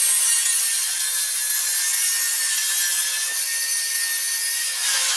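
Handheld angle grinder grinding a steel pipe: a steady high whine over a harsh grinding hiss, the pitch sagging slightly near the end as the disc is pressed harder.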